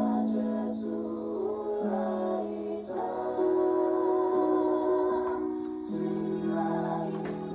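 A cappella vocal group singing in close harmony, holding sustained chords that change every second or two, with vibrato in an upper voice.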